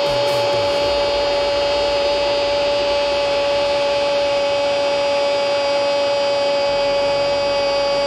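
A steady droning tone with several overtones, held unchanged at one pitch.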